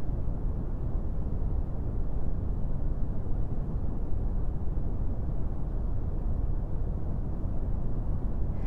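Wind buffeting the microphone: a steady, loud low rumble with no distinct sounds in it.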